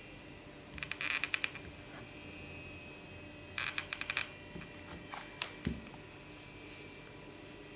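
Hot glue gun trigger squeezed, its feed mechanism giving quick runs of ratcheting clicks about a second in and again after three and a half seconds, followed by a few single clicks.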